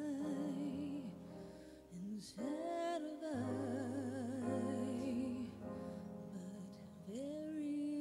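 A woman singing long held notes with a wide vibrato, accompanied by sustained keyboard chords. She holds one note at the start, glides up to another from about two and a half seconds to five and a half seconds in, and rises to a third near the end.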